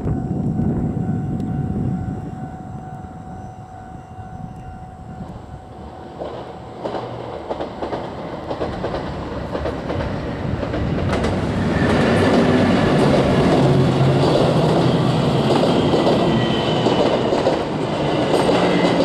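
A level-crossing warning signal sounds a steady repeated tone at first. Then the Hamakaze, a diesel limited express train, approaches and passes over the crossing: diesel engine and wheel clatter on the rails build from about six seconds in and are loudest in the last third.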